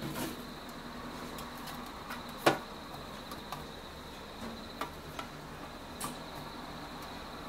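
An insect trilling steadily at a high pitch, over a low hum. Scattered light clicks break in, the sharpest one about two and a half seconds in.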